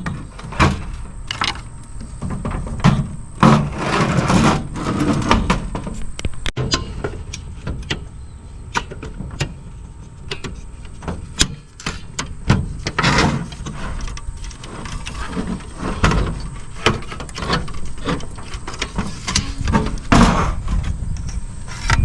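Irregular clicks, knocks and scraping of metal and plastic parts being handled and pulled apart while a cassette deck is dismantled.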